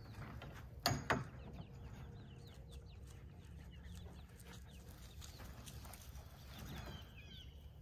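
Chickens clucking quietly over a low rumble, with two sharp knocks about a second in.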